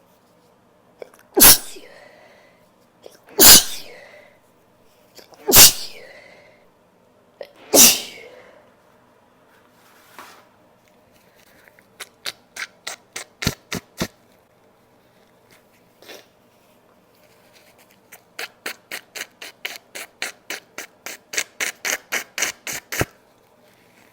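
A woman sneezing four times in a row, about two seconds apart, each sneeze with a short intake of breath before it; the sneezes are set off by tickling the nose with a tissue. Then come two runs of quick, sharp sniffles, about five a second, the second run longer.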